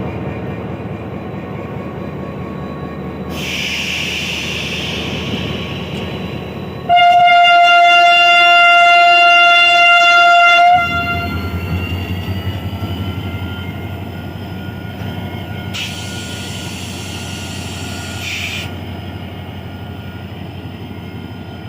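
HGMU-30 diesel-electric locomotive running with a steady low rumble as a goods train departs, and a loud, steady horn blast of about four seconds in the middle. After the horn the engine's pitch slowly rises as it pulls away. Two spells of hissing come before and after the horn.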